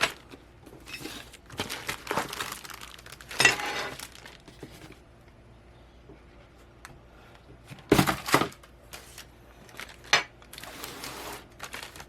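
Packaging being handled during unboxing: plastic and paper rustling and crinkling in irregular bursts, with a few light clinks of metal parts. The loudest bursts come about three and a half seconds in and again around eight seconds in.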